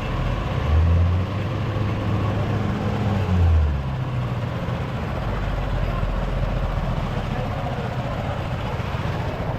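An engine running with a low, steady drone that swells louder twice, about a second in and again around three and a half seconds in, over a background murmur.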